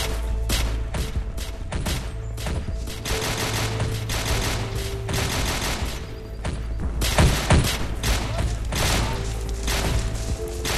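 Automatic rifle fire sound effects: dense, overlapping bursts of shots throughout, with a few louder shots about seven seconds in.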